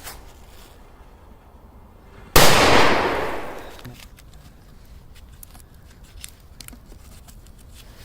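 A firecracker goes off with one loud bang about two and a half seconds in, followed by a hiss that fades over about a second and a half.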